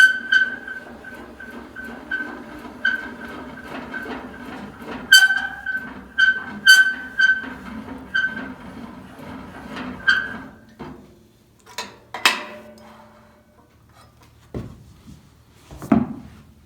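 Repeated metal squeaks, about one a second with a low hum beneath, as the old Delta contractor table saw's blade-tilt mechanism is cranked over to its 45-degree stop. The squeaking stops a little over two-thirds of the way through, and a few light knocks follow.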